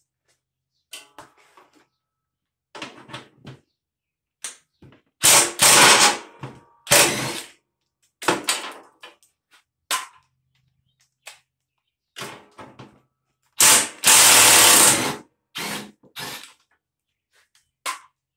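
Cordless drill run in two bursts of about a second each, backing out the bolts that hold a riding mower's seat, with short clicks, clanks and rattles of the tool and metal parts in between.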